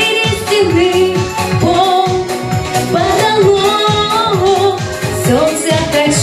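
A female voice singing a pop-style song over instrumental accompaniment with a steady beat.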